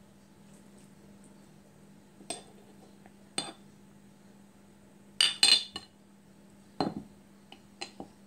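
Metal spoon clinking against a glass jar and frying pan as cooked green beans are spooned into the jar: scattered sharp clinks, with a quick cluster of the loudest a little past halfway, over a faint steady hum.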